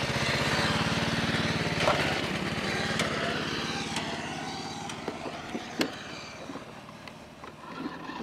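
Craftsman riding mower engine running with a steady firing rhythm, fading gradually as the mower pulls away, with a few sharp clicks in the second half.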